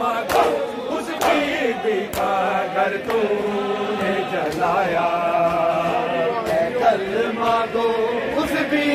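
Men chanting an Urdu nauha (Shia lament) in long held lines, with chest-beating (matam) slaps about once a second in the first few seconds.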